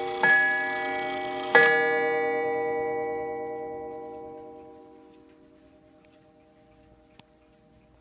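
Sessions pendulum mantel clock striking the hour, its hammer hitting a coiled wire gong: two strokes about a second and a quarter apart, the last ringing on and fading away over about three seconds.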